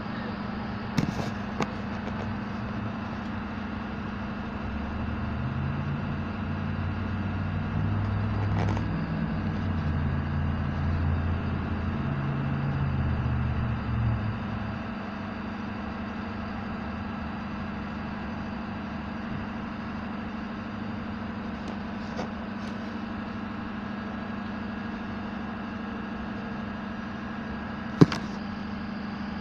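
Ambulance engine idling with a steady low hum; a louder low rumble builds and holds for several seconds in the first half, then drops away. A sharp knock sounds once near the end.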